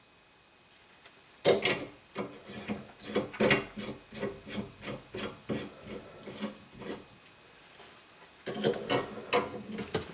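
Hand work on a shower valve: a run of short rubbing and scraping strokes, about two or three a second, starting about a second and a half in, pausing, then resuming near the end.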